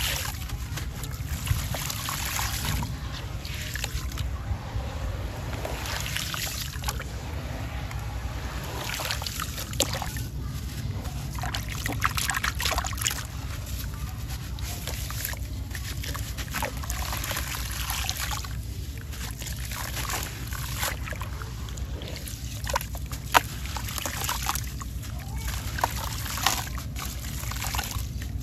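Hands sloshing and splashing in a tub of muddy water as wet sand-cement chunks and a cylinder are dipped, squeezed and crumbled, gritty sand trickling and spattering back into the water in many small crackles. A steady low rumble runs underneath, and one sharp click stands out near the end.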